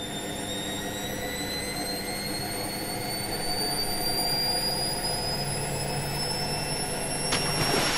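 Washing machine spin-cycle sound effect: a motor whine slowly rising in pitch over a steady hum. A click near the end is followed by a rushing swish that builds.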